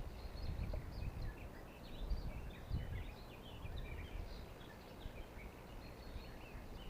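Faint songbirds singing: many short chirps and trills overlapping throughout, with a low rumble underneath.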